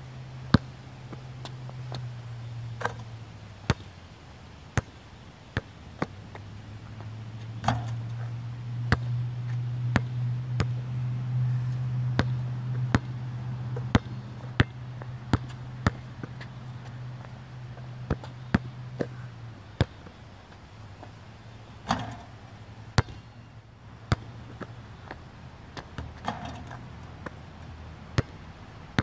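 Basketball bouncing on an outdoor court, sharp single thuds about once a second, over a steady low hum that is loudest in the middle and drops back about two-thirds of the way through.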